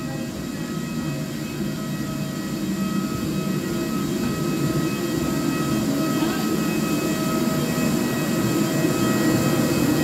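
Steady drone of a parked airliner and its ground equipment, with several thin, steady high whining tones above it. It grows gradually louder.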